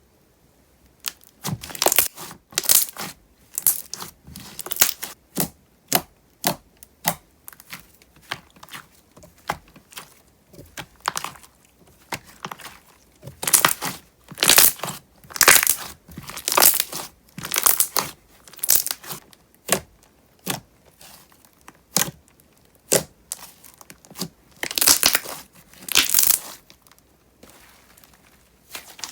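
Thick, glossy slime being pressed and squeezed by hand, giving repeated bursts of small crackling bubble pops, about one or two a second, with the loudest run around the middle and again near the end.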